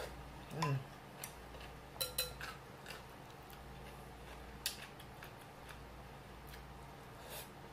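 Eating sounds at a table: a short falling 'mm' hum with a full mouth about half a second in, then scattered sharp clicks and taps of a wooden spoon and metal chopsticks against glass bowls as noodles are picked up.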